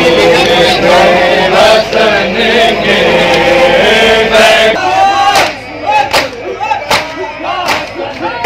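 Crowd of men chanting a noha together. About five seconds in, this gives way to chanting over rhythmic matam: sharp slaps of hands on bare chests, roughly one every three-quarters of a second.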